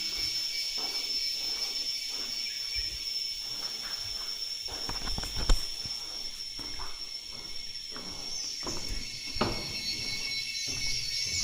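Rainforest insects, such as cicadas, buzzing in a steady high-pitched chorus, with scattered low thumps and one sharp knock about five and a half seconds in.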